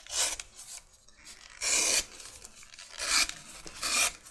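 Leather collar strap being handled and rubbed: four short scraping rasps, the loudest one near the middle, with quieter rustling between.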